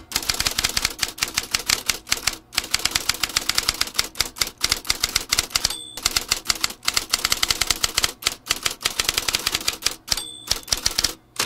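Typewriter typing sound effect: rapid keystroke clacks, several a second, pausing briefly between lines, with a bell ding at two of the pauses.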